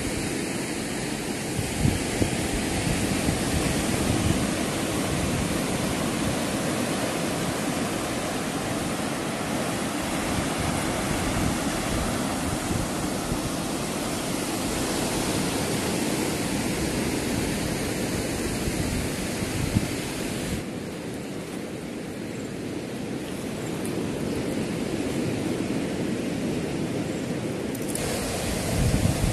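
Steady rushing noise of sea surf and wind blowing over the microphone, with small gusty low rumbles; the sound changes character twice, about 21 and 28 seconds in.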